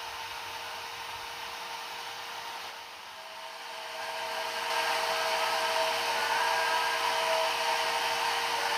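A steady, even hiss like a small motor or blower, with a faint steady hum under it; it grows louder about four seconds in and then holds.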